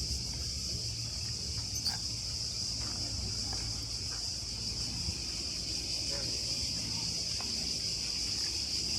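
Chorus of cicadas, a steady high-pitched buzz that never lets up, over a low rumble.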